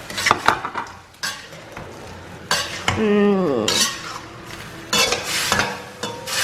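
Metal spoon clinking and scraping against a pan as fried eggs are stirred into a bubbling, thickened sauce, with a steady sizzle. A short falling pitched sound comes about three seconds in.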